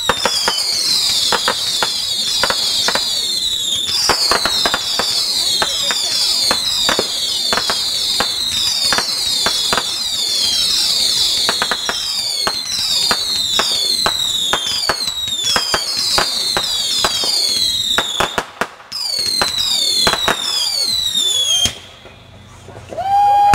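Fireworks firing a rapid barrage of whistling shots: overlapping high whistles that each fall in pitch, about two a second, mixed with sharp pops and crackles. The barrage stops abruptly about 22 seconds in.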